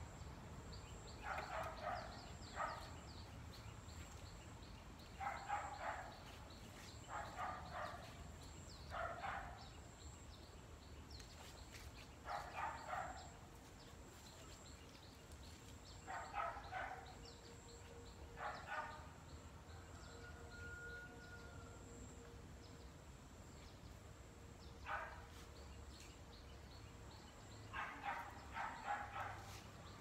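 A dog barking in short runs of quick barks, about ten bouts spread every few seconds.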